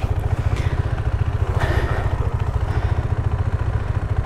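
Adventure motorcycle engine running steadily at low revs with an even throb as the bike is ridden slowly along a muddy dirt trail. A short hiss comes about a second and a half in.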